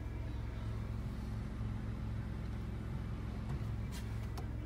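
Volkswagen up!'s 1.0-litre three-cylinder petrol engine idling steadily, heard from inside the cabin as a low drone.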